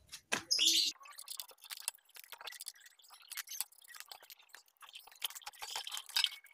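Spanner clinking and ticking on a motorcycle's front axle nut as the wheel is taken off: a few louder metallic knocks in the first second, then light, irregular clicks.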